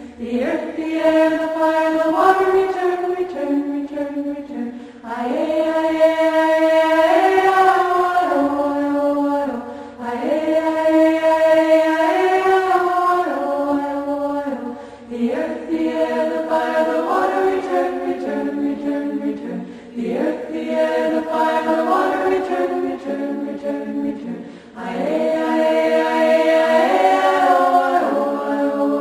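Choral music: a choir singing slow, sustained chant-like phrases, each about five seconds long with a short break between them.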